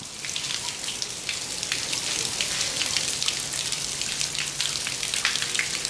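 Rain falling on a hard surface: a steady hiss full of small irregular drop ticks.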